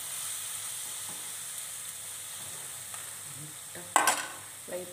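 Onions, green chillies and ginger-garlic paste sizzling steadily in oil in a nonstick kadai while being stirred with a steel slotted spoon. A sharp metal clatter about four seconds in, as the spoon is put aside.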